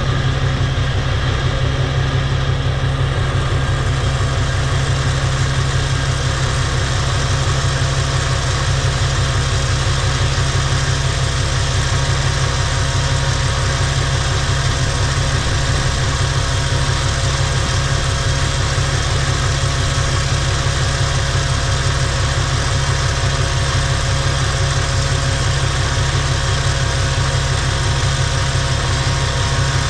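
Truck engine running at a steady idle, an even low hum that holds unchanged throughout.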